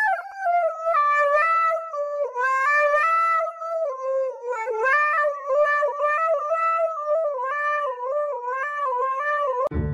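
Husky howling into a toy karaoke microphone: a long, wavering howl whose pitch steps up and down like singing, with a few brief dips, cut off suddenly near the end.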